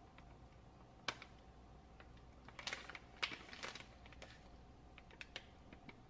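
Plastic food pouch crinkling and crackling as it is handled and turned over in the hand: one sharp click about a second in, a cluster of crackles around the middle, then a few scattered ticks.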